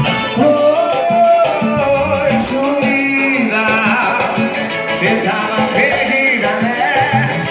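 Music: an upbeat Latin American song, a melody line over a steady bass beat.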